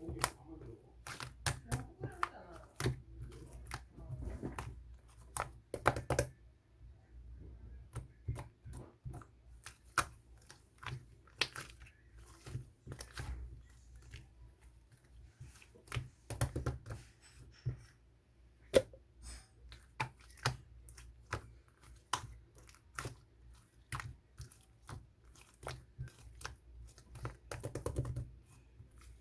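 Clay slime being handled: a steady run of sticky clicks, pops and crackles as it is pressed, stretched and pulled apart.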